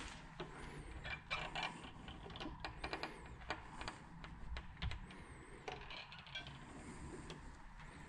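Metal door's lever handle and latch being worked by a gloved hand: irregular clicks and rattles, some in quick clusters.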